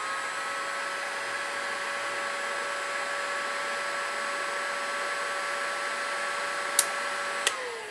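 Electric heat gun blowing hot air onto the breaker's bimetallic strip: a steady motor whine with rushing air. Two sharp clicks come near the end, and then the whine falls in pitch as the motor runs down.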